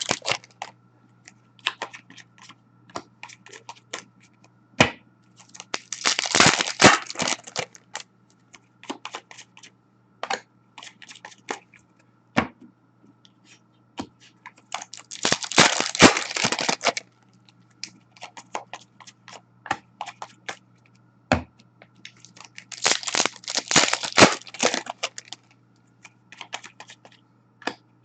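Hockey card packs being torn open, the crinkly tearing of a pack wrapper three times, each lasting a second or two, with light clicks and taps of cards being handled in between. A faint steady hum underneath.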